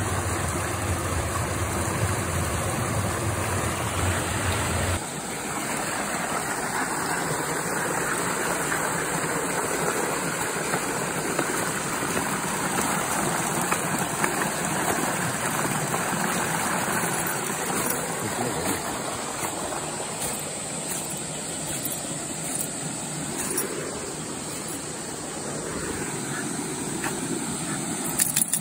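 Water rushing steadily through a small concrete drainage channel, with a low rumble under it for the first five seconds. A few sharp clicks near the end.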